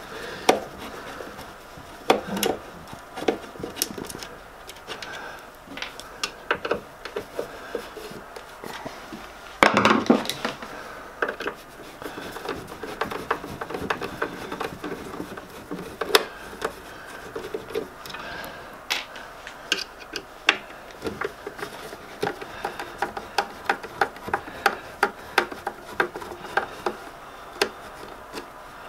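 Hand screwdriver working screws out of the sheet-metal mounting of a lathe's control unit: scattered small metallic clicks and scrapes, with one louder knock about ten seconds in.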